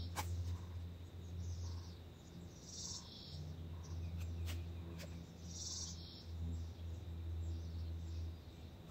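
Riverbank outdoor sound: a steady low hum underneath, a bird chirping twice, a few seconds apart, and a few faint clicks, the sharpest one right at the start as a fishing line is cast.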